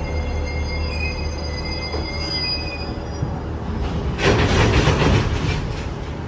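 Train at a station with a steady low rumble and thin high-pitched tones. About four seconds in there is a loud burst of hissing that fades over a second or so.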